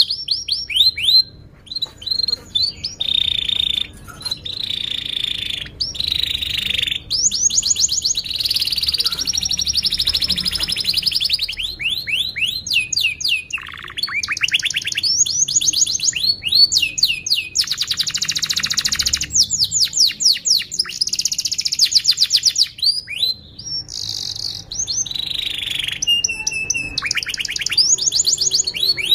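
Domestic canary singing a long continuous song: phrase after phrase of rapid repeated notes, trills and rolls, each lasting a second or a few before switching to a new type, with only brief pauses.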